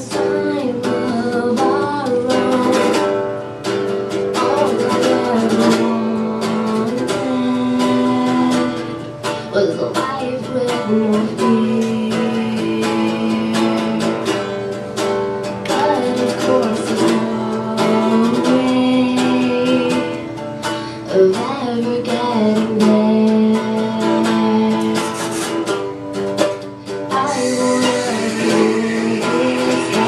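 Live song by a guitar-and-vocal duo: guitar playing steadily under sung melody lines.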